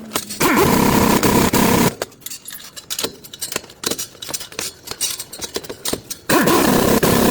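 Two loud spells of machine noise, the first about half a second in and lasting about a second and a half, the second near the end, with scattered clicks and knocks of workshop handling between them.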